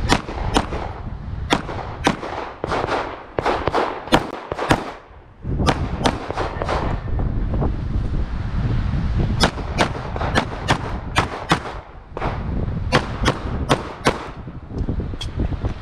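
Handgun shots fired rapidly at a USPSA stage, about two dozen in quick strings and pairs, with short breaks about eight and twelve seconds in while the shooter moves or reloads.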